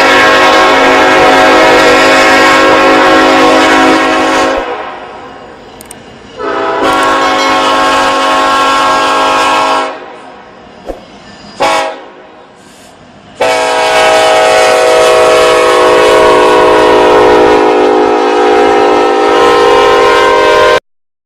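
Train horn sounding three long, steady blasts, with two short toots between the second and third.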